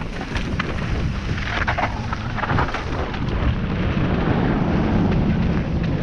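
Wind rushing over an action camera's microphone during a fast mountain bike descent, with a steady low rumble and tyres crunching over gravel. Frequent short clicks and rattles from the bike run through it.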